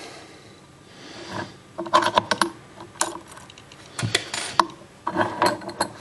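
Master Lock Fortress padlock being handled in a metal bench vise with its shackle open: several short bursts of metallic clicking and rattling.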